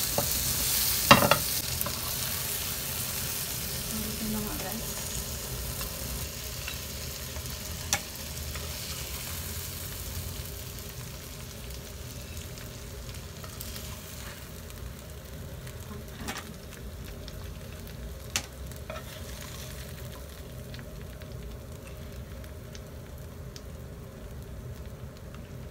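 Garlic shrimp sizzling in oil in a nonstick frying pan, the sizzle slowly growing quieter, with a few sharp knocks of a spatula, the loudest about a second in.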